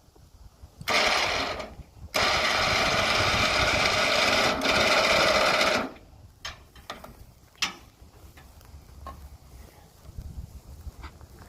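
A motor running in two bursts, a short one of about a second and then one of nearly four seconds, followed by scattered metallic clicks and knocks.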